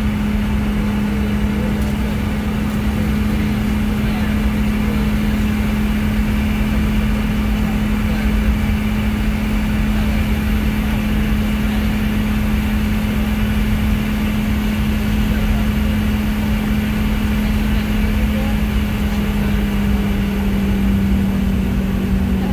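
Cabin noise inside a Boeing 717-200 taxiing: the steady rush of its rear-mounted Rolls-Royce BR715 turbofans and the cabin air, with a low steady drone that dips slightly in pitch near the end.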